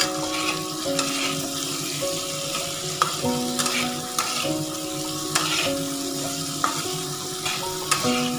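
Potato chunks frying in oil in a metal kadai, sizzling steadily while a spatula stirs them, scraping the pan in short strokes every second or so. A simple background melody plays underneath.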